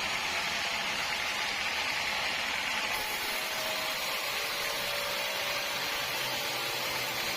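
Sawmill machinery running with a steady whirring hiss. The sound shifts slightly about three seconds in, after which a faint steady whine comes in.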